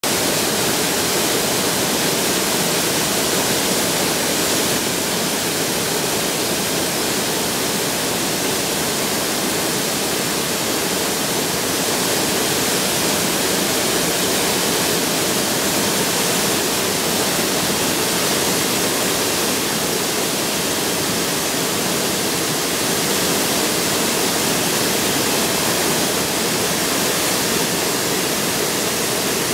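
Fast-flowing mountain water rushing steadily, an even wash of noise with no let-up.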